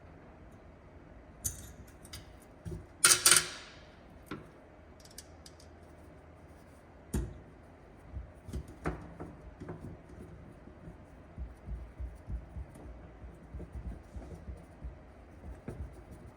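Metal parts and tools clicking and clinking as they are handled while a fuel tank and its fittings are lined up. There is one louder metallic clatter about three seconds in, then a run of small taps and clicks through the second half.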